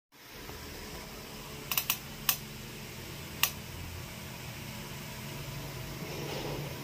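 Cats' claws clicking on ceramic floor tiles as two cats grapple, with a quick run of three sharp clicks and then two single clicks, over a steady low hum.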